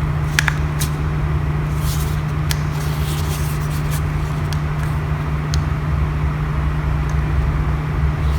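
A steady low hum with a few small clicks of a plastic-and-aluminium power bank being handled, mostly near the start and one more about five and a half seconds in.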